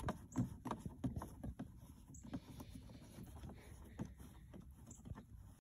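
Faint, irregular light taps and clicks as fingers press the plastic hatch lid of a Pro Boat Blackjack 24 RC boat down onto the hull over its locating pins.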